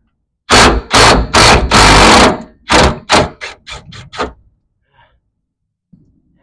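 Cordless impact wrench hammering on a fuel-tank strap bolt in about ten short trigger bursts, the later ones shorter and fainter, stopping about four seconds in.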